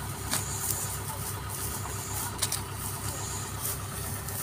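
Diesel engine of a Kubota combine harvester idling with a steady low throb, with a couple of sharp clicks.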